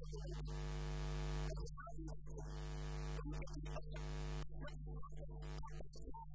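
Steady electrical mains hum from the microphone and sound system, a low drone with a buzzy ladder of overtones, with faint choppy fragments of other sound breaking through now and then.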